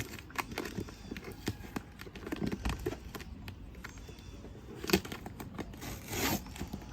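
Packing tape being picked at and peeled off a cardboard box: scattered small scratches and clicks, with a sharper click about five seconds in and a short rustle just after six seconds.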